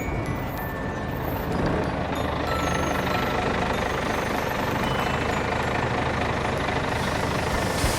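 Minibus engine running steadily.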